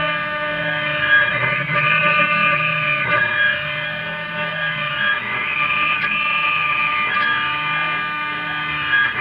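6090 CNC router at work: the spindle runs steadily while a fine engraving bit carves a coin relief. The machine sound swells and eases in a regular cycle of about two seconds as the carving passes sweep back and forth.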